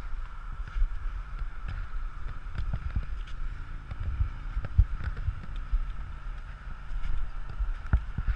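Wind buffeting the microphone of a camera mounted on a hang glider's control frame, a low gusty rumble with a faint steady high tone under it and a few soft knocks from the frame.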